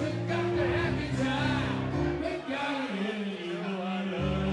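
Live grand piano playing chords with a man singing over it. The low bass notes drop out about three seconds in and come back shortly before the end.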